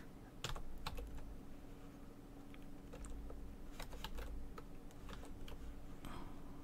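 Computer keyboard typing: irregular, scattered keystrokes as a command is typed.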